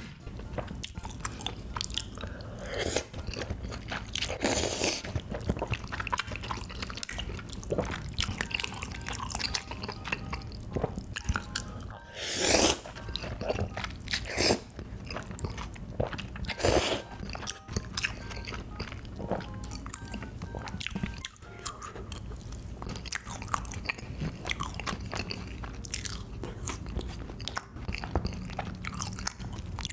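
Close-up eating sounds of spicy ramen noodles and tteokbokki: continual wet chewing and mouth clicks, with about four loud slurps of noodles, the biggest a little before the middle.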